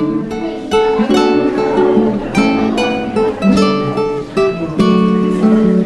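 Background music: a light melody of picked notes on a plucked string instrument, several notes a second.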